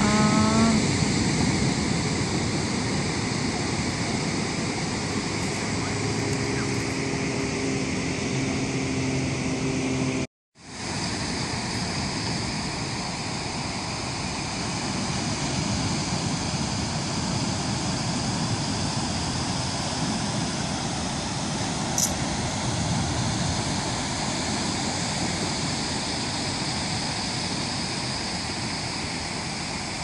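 Steady wash of ocean surf breaking on a sandy beach, with a brief break in the sound about ten seconds in.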